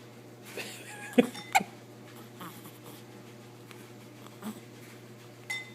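Hiccups: two loud, sharp hiccups in quick succession about a second in, then a few fainter ones later.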